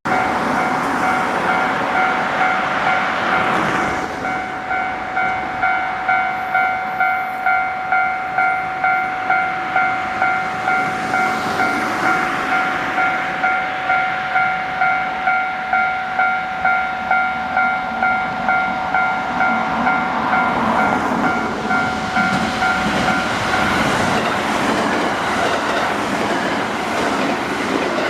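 A JR Hanwa Line electric train passing over a level crossing, its wheels clattering steadily over the rail joints. The crossing's electronic warning bell rings throughout, a steady pulsing tone, and stops about 23 seconds in while the train is still going by.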